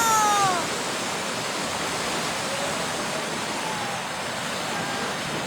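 Steady rush of fast-flowing floodwater.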